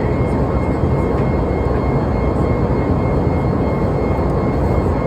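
Boeing 737 MAX cabin noise in the climb: the steady roar of its CFM LEAP-1B turbofans and the airflow over the fuselage, with a thin steady whine above it.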